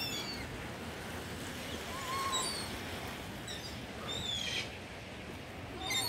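Gulls calling among a feeding flock of pigeons and gulls: short, high calls scattered throughout, several falling in pitch, with a lower call about two seconds in, over a steady low outdoor background noise.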